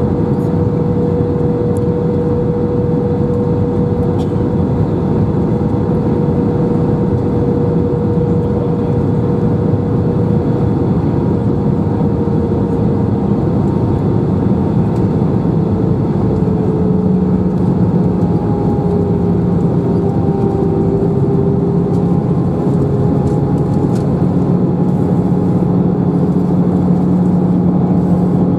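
Airbus A319 cabin noise on approach: the steady rumble of the jet engines and the airflow, with engine hum tones that slowly shift in pitch as thrust changes, one dropping a little around the middle while a lower hum grows stronger.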